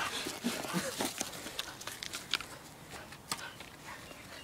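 Scuffling as a dog tussles with a long wooden stick held at the other end: scattered knocks and rustles, with footfalls on grass.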